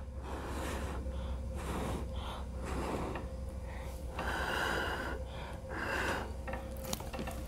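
Repeated forceful blows of a person's breath across wet acrylic paint on a canvas, pushing the paint outward in a Dutch pour. The blows come one after another with short pauses between them, the longest and strongest about four seconds in.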